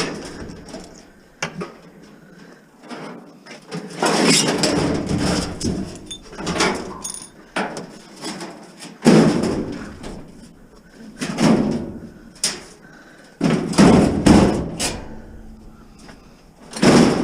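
A series of heavy knocks and clatters, about five loud ones spaced a few seconds apart with smaller knocks between, as things are moved about and doors or lids are shut.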